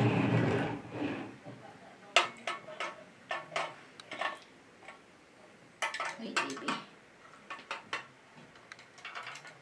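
Diecast metal toy trucks and their plastic container trailers clicking and clattering as they are handled and set down on a table: a string of short, sharp knocks, with a louder clunk at the very start.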